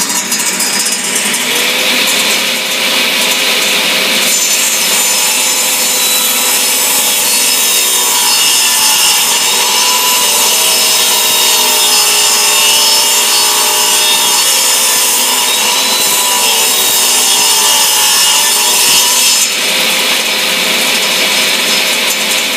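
Jet CTAS-10 cabinet table saw's 3-horsepower motor and three-V-belt drive running, heard from inside the saw's cabinet, while a board is cut on the blade. The cutting sound grows stronger about four seconds in and eases off near the end.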